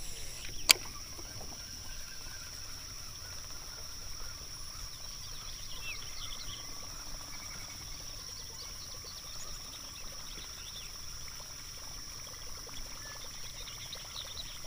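Steady high-pitched insect chorus, with one sharp click about a second in and a few short chirps midway.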